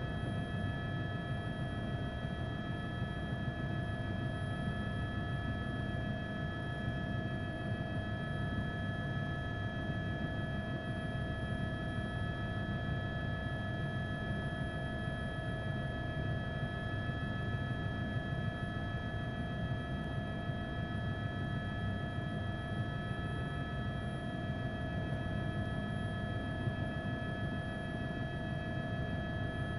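Steady drone of a news helicopter's engine and rotors: a low rumble with several constant whining tones held over it, unchanging throughout.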